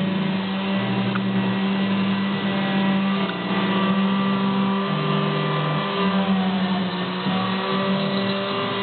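CNC router's motors running with a whine whose pitch jumps between several steady tones every half second to a second, as the axes move at changing speeds, over a constant hum.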